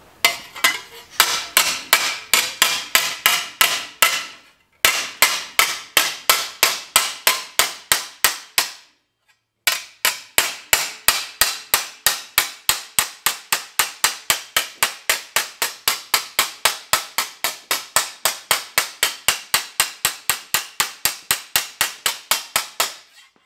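A radiused hammer striking a small piece of sheet metal held on a section of railroad rail used as an anvil: quick, evenly paced metallic blows, about four a second, in three runs with short pauses about four and nine seconds in. The metal is being worked into a reverse curve.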